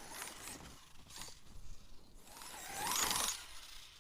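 1/7-scale Arrma Mojave RC buggy driving with a clicking, crunching drivetrain: a short burst about a second in, then a louder surge that rises and falls near the end. The crunching comes from a stripped differential.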